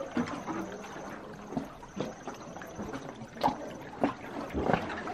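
Paddle strokes in calm water from an inflatable sea canoe: several short splashes with water trickling and dripping in between.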